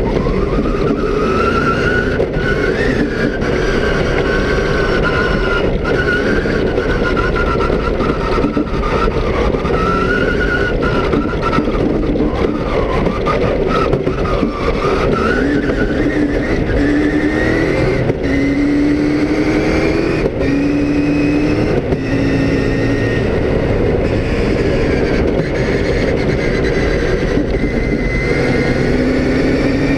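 Cross-country race car heard from inside the cabin: the engine pulls hard up through the gears, its pitch rising and then stepping down at each upshift, over constant loud road noise.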